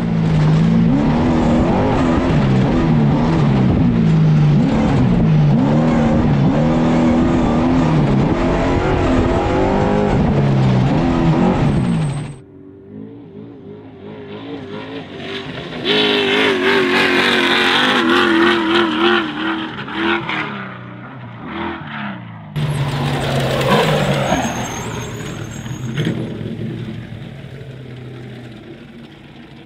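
Mason all-wheel-drive trophy truck's engine revving hard, its pitch climbing and dropping again and again through the gears for about twelve seconds, then cutting off suddenly. Shorter, quieter stretches of the engine running at high revs follow, including one that sweeps down and back up in pitch about two-thirds of the way through.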